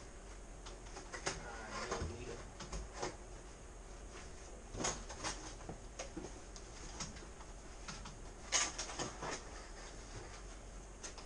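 Scattered rustles and clicks of paper and an envelope being handled with gloved hands, with a few louder handling knocks about five and eight and a half seconds in.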